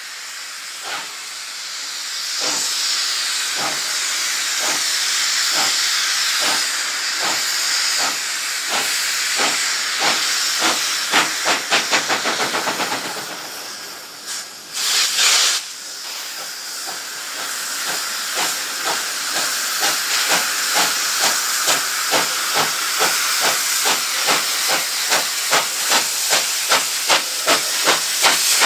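NSWGR 59 class 2-8-2 steam locomotive 5917 pulling away with its train: exhaust beats, slow at first and steadily quickening, over a constant hiss of steam from the cylinders. About halfway through there is a brief, louder burst of high sound.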